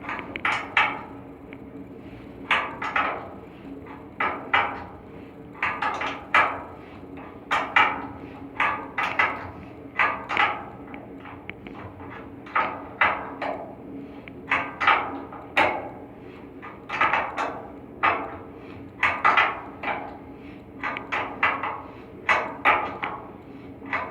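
Irregular metallic knocks and clanks from hand tools working on an air handling unit's blower assembly during a V-belt change, often two or three in quick succession, over a steady hum.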